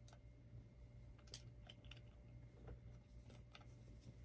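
Near silence: faint room hum with a few soft, brief rustles of a cotton T-shirt being unfolded and held up.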